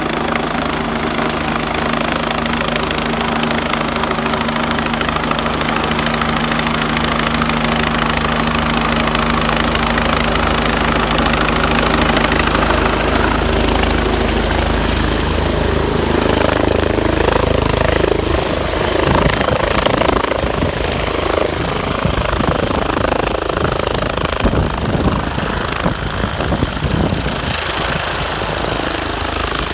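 Life Flight medical helicopter running close by, with a steady rotor beat and a high turbine whine that slowly drops in pitch. About halfway through the steady beat gives way to a rough, irregular buffeting of rotor wash.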